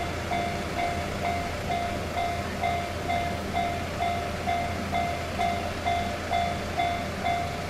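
Railroad crossing's electronic warning bell ringing in a steady, even clang of about two strokes a second, a signal that the gates are down for an approaching train. A low steady hum runs underneath.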